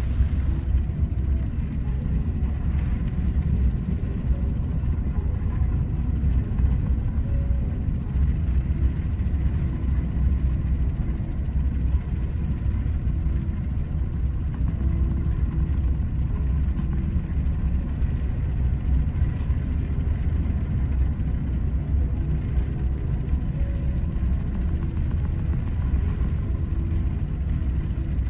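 Steady low rumble aboard an oil tanker pushing through heavy seas: the ship's machinery and wind, with the sea breaking along the hull.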